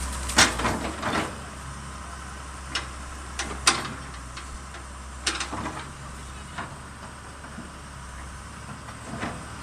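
A series of sharp knocks and clunks, the loudest about half a second in and again near four seconds, over a low steady hum.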